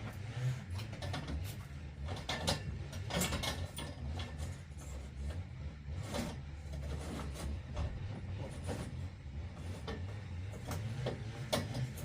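Hands-on roof-propping work: irregular metallic clicks and knocks from steel props and timbers being handled and wound up, over a steady low rumble.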